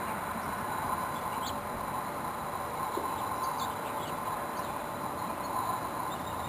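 Steady hum of many bees working a flowering winterberry holly bush, with a few short, faint high chirps over it.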